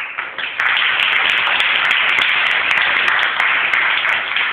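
Audience clapping, starting suddenly and swelling into loud, steady applause about half a second in.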